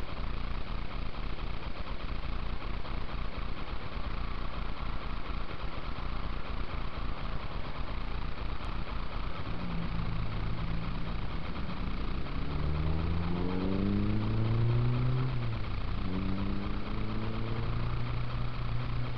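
A classic rally car's engine comes in about halfway through and accelerates away. The revs rise, drop briefly at a gear change, rise again and then hold steady, over a steady rushing background noise.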